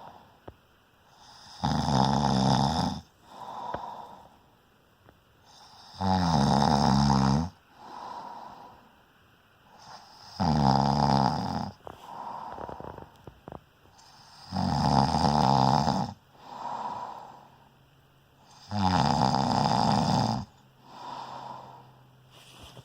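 A sleeping person snoring steadily: five loud snores about four seconds apart, each followed by a softer breath.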